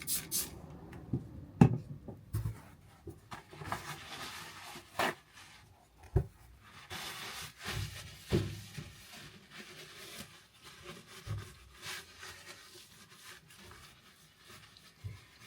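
Hands rubbing and scraping at a vinyl patch on pink vinyl trim, with scattered light knocks and taps.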